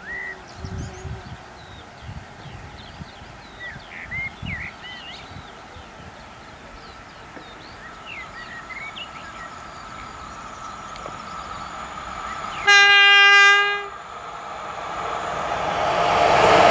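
Electric locomotive of an approaching passenger train sounds one horn blast, a single steady tone of about a second, a little after the middle. The rumble of the train on the rails grows steadily louder toward the end as it draws near.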